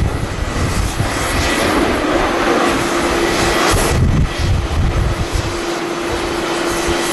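Jet airliner engines running on the airfield, a dense steady roar with a steady whine joining about two and a half seconds in. Strong wind buffets the microphone with uneven low rumbling gusts.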